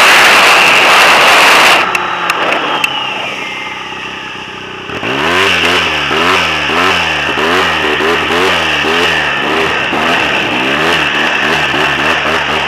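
Turbocharged Arctic Cat M1100 snowmobile engine: a loud rush under power for about the first two seconds, then a sudden drop as the throttle closes, with a whine falling in pitch. From about five seconds in, the engine revs rise and fall over and over, about two to three times a second, as the throttle is worked on the slope.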